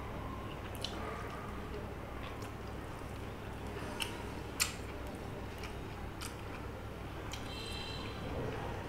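Eating by hand from a steel plate: fingers mixing and squishing soft rice and greens, with chewing, and a few sharp clicks of fingers against the steel plate, the loudest about four and a half seconds in. A steady low hum runs underneath.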